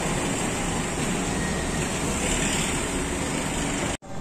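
Steady outdoor noise at a hotel driveway: a mix of traffic and general outdoor hiss. It cuts off abruptly near the end, and a quieter indoor ambience follows.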